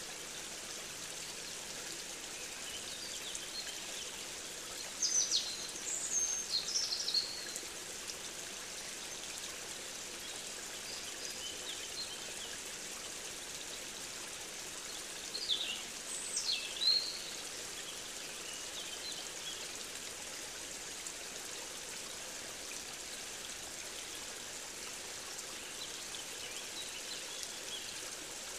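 Steady rushing of a running stream, with high, quick bird calls in two short clusters, about five seconds in and again about sixteen seconds in.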